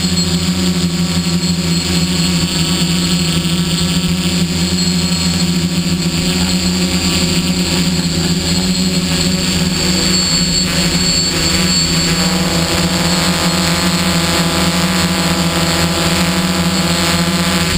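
Hexacopter with six Tiger MT2814 770kv brushless motors spinning 11-inch carbon-fibre propellers, heard from the camera on board: a loud, steady multi-tone hum. The tones shift partway through as the motor speeds change.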